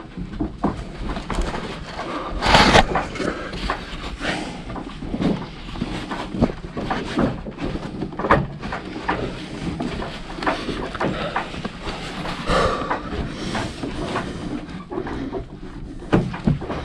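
Irregular knocks, scrapes and rustles of someone climbing a wooden rope-lashed ladder with a camera in hand, with louder bumps about two and a half seconds in and again about twelve seconds in.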